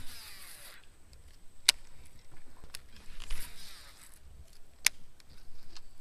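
Fishing rod and reel handling while casting: two short whirring swishes, with a sharp click after each one.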